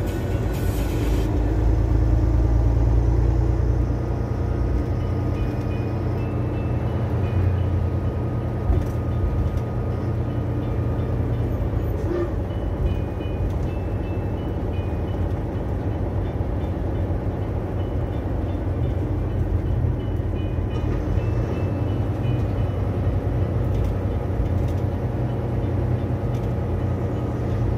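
Steady low engine and road rumble inside a vehicle's cab as it drives slowly in traffic, with a constant underlying hum.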